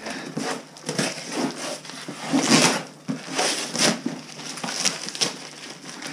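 Packing paper being pulled out of a cardboard box and crumpled, in irregular rustling bursts, the loudest about two and a half seconds in.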